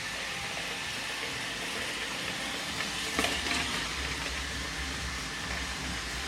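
iRobot Roomba 880 robot vacuum running with a steady hiss and a faint high whine, with a single knock about three seconds in.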